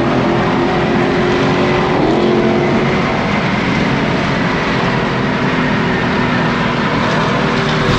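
Dodge Challenger at freeway speed, heard from inside the cabin: the engine's steady drone under heavy road and wind noise, with a brief rise in engine pitch about two seconds in.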